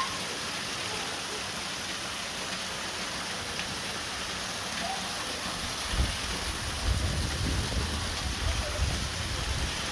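Steady hiss of spraying and falling water from water-park play features. Irregular low rumbling thumps join in from about six seconds in.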